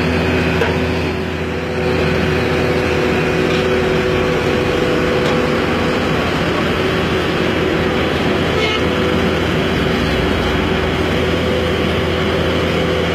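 Ingersoll Rand single-drum road roller's diesel engine running steadily under load as the roller climbs ramps onto a truck trailer, with a steady whining tone over the engine. It gets a little louder about two seconds in.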